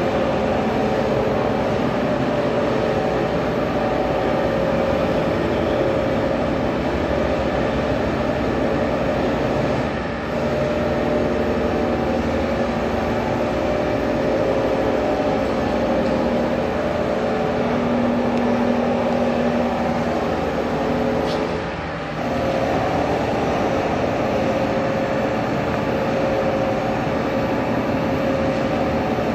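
Workshop machinery running steadily with a constant hum, dipping briefly twice, about ten seconds in and about twenty-two seconds in.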